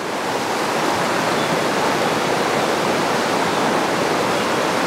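Steady rushing of river rapids, water pouring over rocks, swelling a little in the first second.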